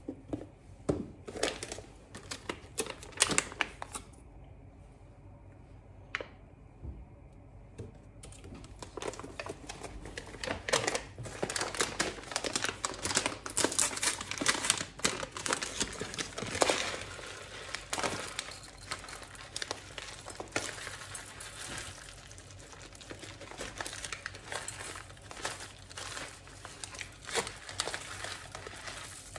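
Crinkly wrapping being handled: sharp crinkling and rustling crackles, scattered at first and dense and continuous from about eight seconds in.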